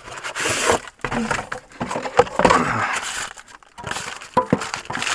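Packaging rustling and scraping in uneven bursts as a boxed car stereo head unit is worked out of its box, with a few sharp clicks a little after four seconds.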